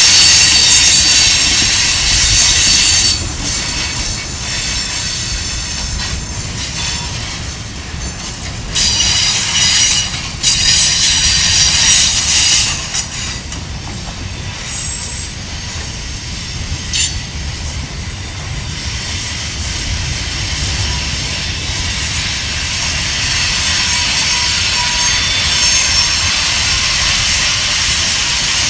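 Freight cars (covered hoppers and tank cars) rolling past on a curve, steel wheels squealing in high, steady tones over a low rumble of wheels on rail. The squeal is loudest at the start and again from about nine to twelve seconds in, with a single sharp click near seventeen seconds.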